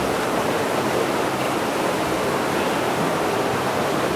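Waterfall rushing steadily: an even, unbroken wash of falling water.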